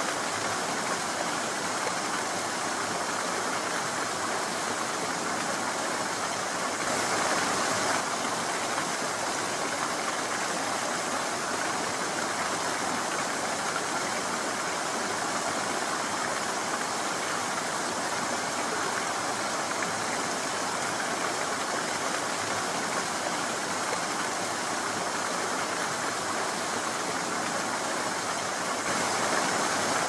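Small rocky stream running over stones in a steady rush of water, swelling slightly twice, about seven seconds in and near the end.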